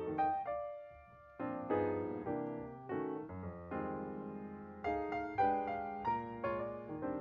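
Background music played on piano, single notes and chords struck and left to ring, with a short lull about a second in.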